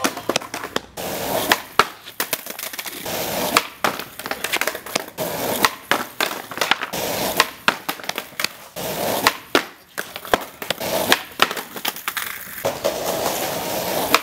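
Skateboard wheels rolling on concrete, broken by many sharp clacks of the board popping, hitting the small wooden rail and slapping down again over repeated lipslide attempts.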